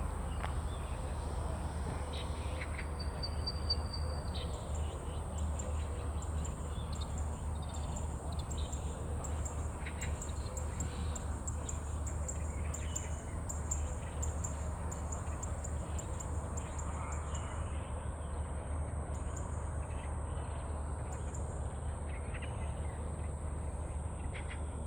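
Zitting cisticola calling: a run of short, high, evenly repeated notes starting about five seconds in, thinning out after about seventeen seconds. A steady high hiss and a low rumble run underneath.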